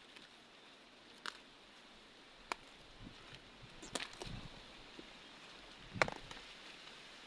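A few scattered sharp clicks and knocks over faint background noise, the loudest about six seconds in.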